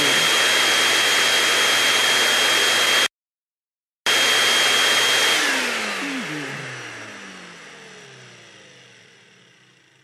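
Indoor vacuum cleaner running with a steady high-pitched whine. It cuts off abruptly about three seconds in, then after a second of silence runs again at full speed. A little past five seconds in it is switched off, and its motor whine falls in pitch and fades away as it spins down.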